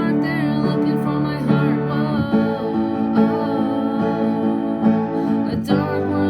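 Music: a steady accompaniment under a wavering melody line, with a short break in the sound about five and a half seconds in.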